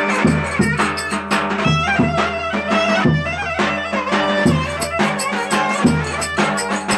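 Turkish folk dance tune (oyun havası) played on a melody instrument over a steady drum beat.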